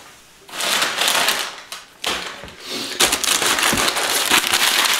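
Crumpled brown kraft packing paper crinkling and rustling as a hand rummages through it in a cardboard box. It starts about half a second in, pauses briefly near two seconds, and is louder and continuous from about three seconds in.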